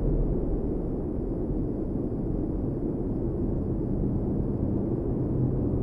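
Low, dark rumbling drone from a soundtrack, with a few held bass notes under it.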